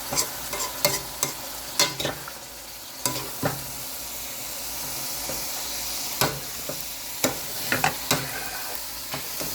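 Beef sizzling in a hot wok while being stirred and flipped, with a cooking utensil scraping and knocking against the pan a dozen or so times over the steady frying hiss.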